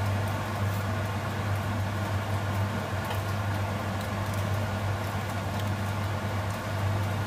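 Steady low machine hum of a running kitchen appliance, even and unchanging throughout.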